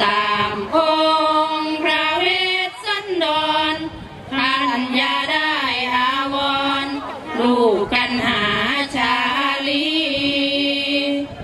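A woman singing sarabhanya, the Thai Buddhist verse chant, in long held notes with sliding ornaments between them, in phrases broken by short pauses.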